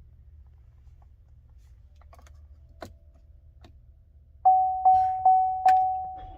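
Light clicks over a faint low hum, then about a second and a half before the end four quick, evenly spaced chimes at the same pitch, each dying away: a car's warning chime.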